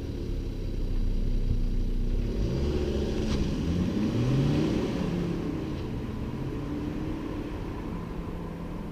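Volvo C70 D5's 2.4-litre five-cylinder turbodiesel pulling under acceleration. Its note rises several times and drops back between the rises, as it would through gear changes, then runs quieter and steadier over the last few seconds. A short click is heard a little past three seconds in.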